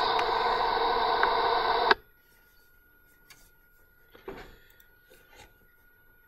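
Steady hiss from a playing animation video's soundtrack, cutting off abruptly about two seconds in as the playback ends. After that it is quiet, apart from a faint steady tone and a few soft clicks and a knock.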